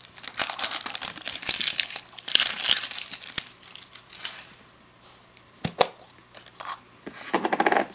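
Crinkling and tearing of a plastic wrapper being pulled off a surprise egg, dense for the first few seconds. After a lull there are a few sharp clicks, then a short squeaky rasp near the end as the plastic is handled.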